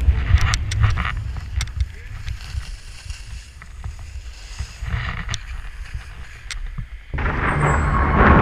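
Skis sliding on packed snow, heard through a pole-mounted action camera, with wind rumbling on the microphone and scattered sharp clicks. The rushing of snow and wind gets suddenly much louder about seven seconds in.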